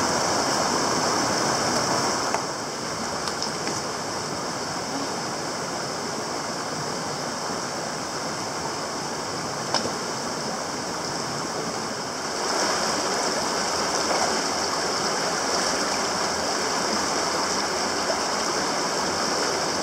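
Steady rushing of a mountain stream over stones, quieter from about two seconds in and louder again from about twelve seconds in.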